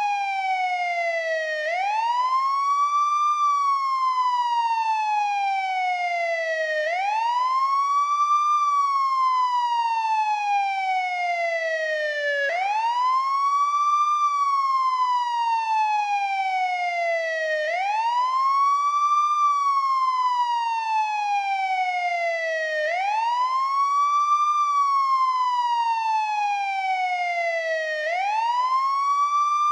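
American police siren on its wail tone: a pitch that sweeps up and down over and over, about every five seconds. Each quick rise is followed by a slower, even fall.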